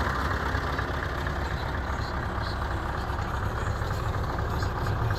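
Scania R580's V8 diesel engine idling steadily, heard from inside the cab.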